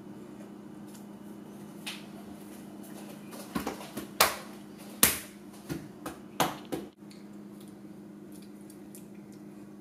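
A series of light knocks and taps, a child's hands and a scone set down on a ceramic plate and the countertop, about nine in all with the loudest two near the middle, over a steady low room hum.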